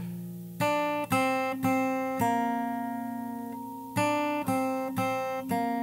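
Acoustic guitar with a capo played fingerstyle: two slow groups of four plucked notes about half a second apart, each left ringing, the second group starting about four seconds in.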